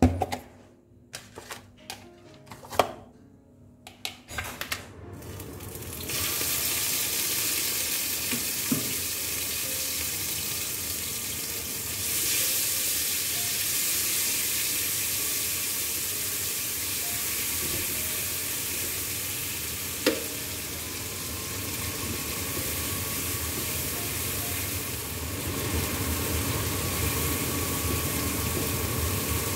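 A few light clicks and knocks, then from about six seconds in a steady sizzle of food frying in a wok as it is stirred with a wooden spatula. One sharp knock about twenty seconds in.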